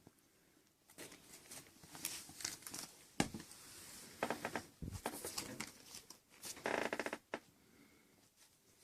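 Kittens at play, scuffling and rustling with scattered sharp clicks and taps, ending in a quick rattling run of clicks.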